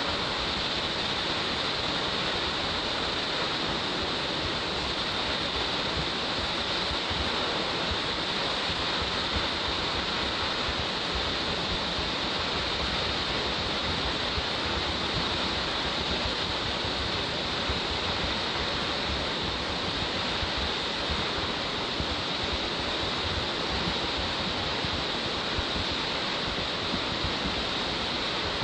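Waterfall with a 63 m drop, a steady, unbroken rush of falling water.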